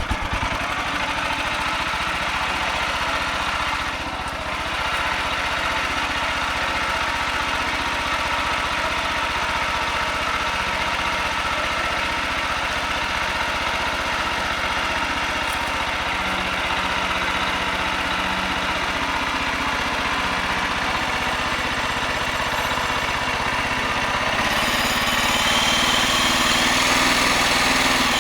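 Small gas engine of a portable bandsaw sawmill running steadily, getting louder with a brighter, higher edge in the last few seconds.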